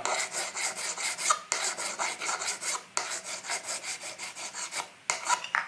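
Rapid back-and-forth rasping strokes of hand abrading on a cast-iron block plane part, smoothing off rough casting marks. The strokes pause briefly a few times, with a couple of sharper clicks near the end.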